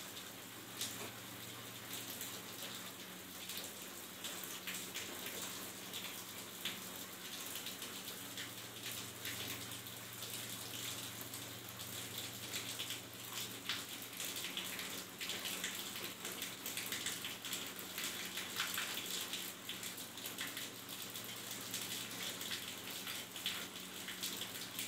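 Pencil lead scratching on paper in short, irregular strokes as it goes over the lines of a transferred drawing to darken them, over a faint, steady low hum.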